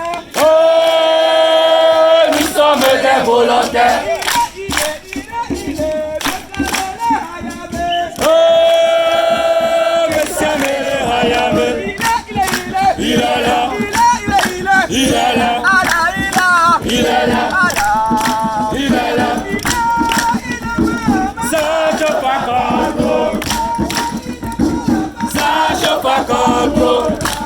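A group of scouts singing and chanting together, with clapping. A single long note is held out twice: about half a second in and again around eight seconds.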